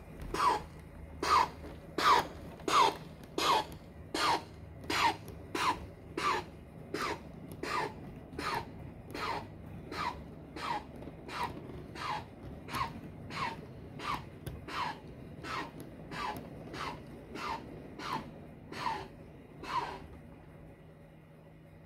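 Bachmann North Pole Special model steam locomotive chuffing steadily, about one and a half chuffs a second. Each chuff is short and falls in pitch. The chuffs are loudest at first, grow fainter as the locomotive moves away, and stop about twenty seconds in.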